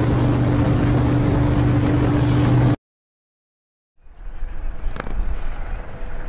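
Motorcycle engine running at a steady highway cruise, with heavy wind rush over the rider-mounted microphone. It cuts off suddenly after nearly three seconds. After a second of silence, a fainter outdoor rumble with a few light ticks comes in.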